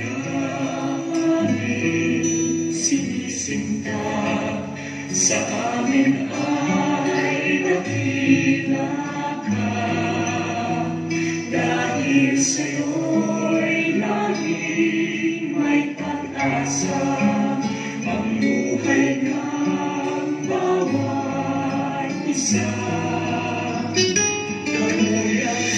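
A recorded Christian choral hymn: a choir singing a prayer song over instrumental accompaniment.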